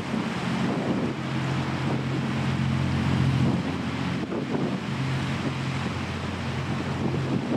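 Engines of a passing high-speed passenger ferry, a steady low drone that fades briefly about halfway through, with wind buffeting the microphone.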